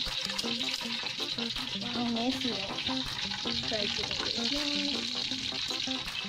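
Breaded chicken pieces deep-frying in hot oil in a wok, a steady sizzle with no breaks.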